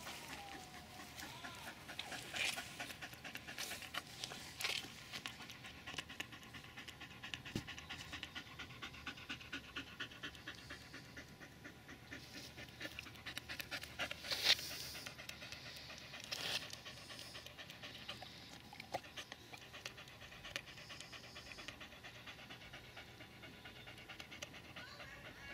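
A Staffordshire Bull Terrier panting hard and fast, about four breaths a second, cooling down after running agility in the heat. A few sharp clicks stand out, the loudest just past halfway.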